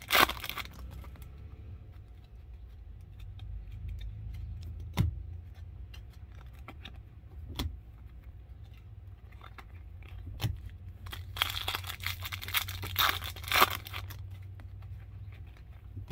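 Foil wrapper of a baseball card pack crinkling and tearing open at the start. Cards are then handled: a few single sharp clicks as cards are flicked, and another stretch of crinkling and rustling about eleven to fourteen seconds in, over a low steady hum.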